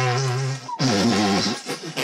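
Music: a low, buzzy held note with a wavering tremor that stops just under a second in, followed by a run of sliding, rising and falling pitches.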